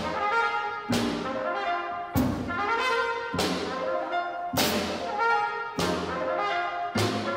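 Live jazz quartet playing: a trumpet carries the melody over grand piano, upright bass and drums. Cymbal hits accent the beat about once a second.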